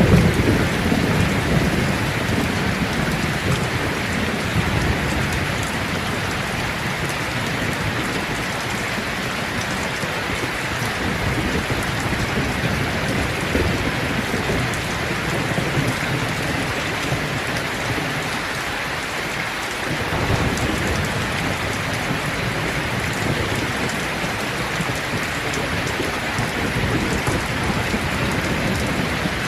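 Heavy rain pouring steadily, a dense even hiss, with a little more low rumble near the start and about twenty seconds in.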